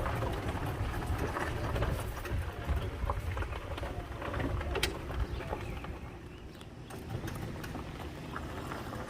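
Outdoor background noise: a steady low rumble with scattered clicks and faint bird calls.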